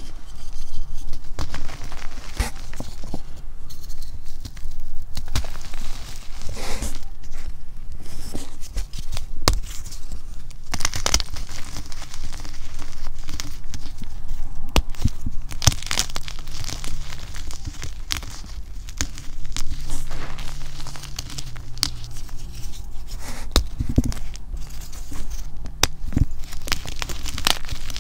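Hands crushing blocks of chalk and reformed chalk in a bin of loose chalk powder: irregular crisp snaps and cracks over a steady crunching, powdery crumble.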